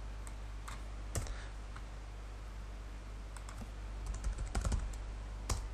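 Typing on a computer keyboard: a few scattered keystrokes, then a quicker run of keys from about three and a half to five seconds in, over a faint steady low hum.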